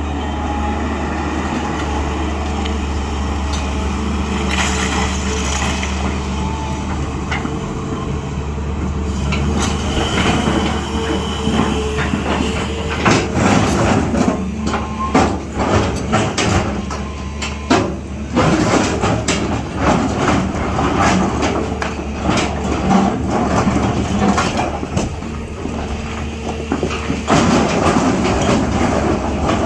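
Diesel engine of a SANY 365H long-boom excavator running steadily under load. From about ten seconds in, frequent sharp knocks and clanks from the machine as it digs, with a short let-up around eighteen seconds.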